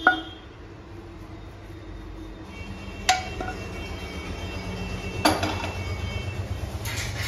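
A spatula scraping and knocking against a nonstick frying pan and a glass bowl as a mashed kebab mixture is tipped out: a sharp knock at the start, then a few more knocks a couple of seconds apart, over a steady low hum.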